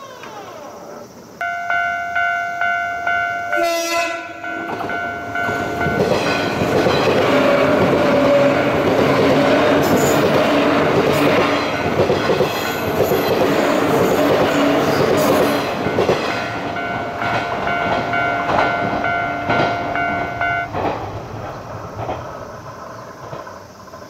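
Japanese level-crossing alarm ringing in a steady pulsing electronic tone, with a short train-horn blast about four seconds in. A JR 185 series 'Odoriko' electric train then passes over the crossing for about ten seconds with rail-joint clatter. The crossing alarm is heard again after the train and stops a few seconds before the end.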